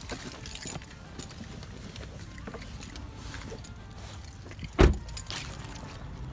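Getting out of a parked car and walking away: door-handle and phone-handling noise, then footsteps on pavement, with one loud thump about five seconds in.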